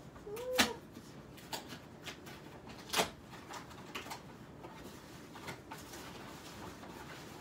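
A cardboard shipping box being torn open by hand: irregular cracks and rustles of tape and cardboard flaps, the loudest about half a second and three seconds in.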